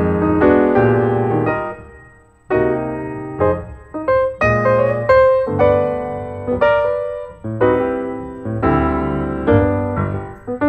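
Piano music: notes and chords struck and left to ring, pausing briefly about two seconds in before the playing resumes.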